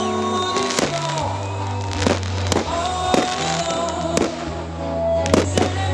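Fireworks bursting in a string of sharp bangs, roughly one every half second to a second, over music with a held bass line.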